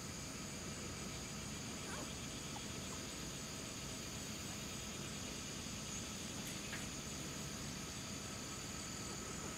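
Steady insect chorus of crickets: several continuous high trills held unchanged, with a couple of faint short chirps.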